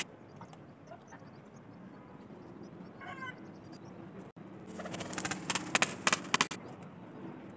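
Pigeons stirring in a brick loft box as it is opened: a short high call about three seconds in, then a loud burst of rapid wing flapping lasting about two seconds.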